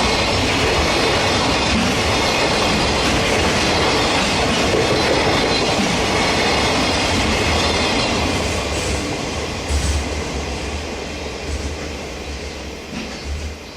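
Freight train's wagons rolling past with steady wheel-and-rail noise and clacking over the rail joints. It fades away over the last few seconds as the end of the train passes.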